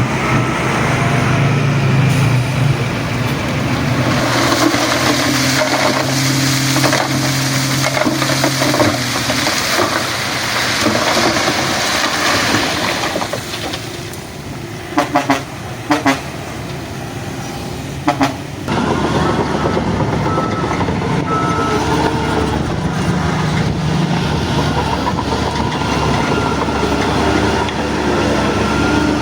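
Bulldozer's diesel engine running steadily on site, with a faint reversing alarm beeping at times. About halfway through the engine drops quieter for a few seconds, broken by a few short, loud tones, then picks up again.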